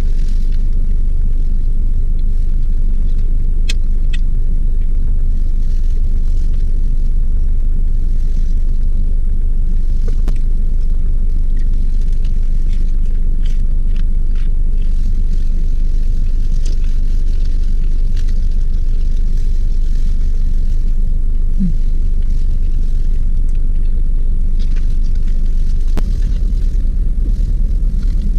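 Steady low rumble of a car idling, heard from inside the cabin, with a few faint clicks from handling and eating food.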